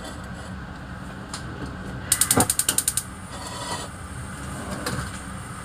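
Gas stove igniter clicking rapidly, about ten clicks in under a second, as the burner under a frying pan is lit, over a steady low hum.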